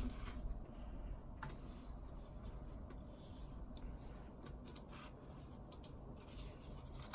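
Faint rubbing and shuffling of things being moved about on a desk by hand, with a few light clicks and taps scattered through it.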